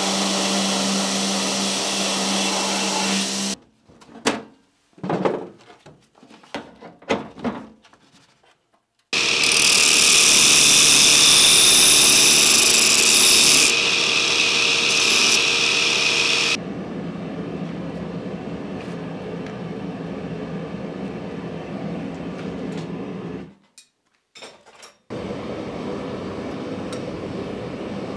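Wilton belt grinder running and grinding a steel axe head in several passes, with short breaks and choppy stretches between them, loudest and hissiest about ten to fourteen seconds in. Near the end, a gas forge's burner running steadily.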